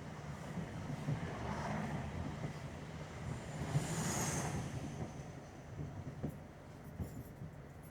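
Interior of a British Rail Class 317 electric multiple unit on the move: a steady low rumble of the carriage running on the rails. About four seconds in the noise swells, with a faint high ring on top, then it eases off and grows quieter towards the end.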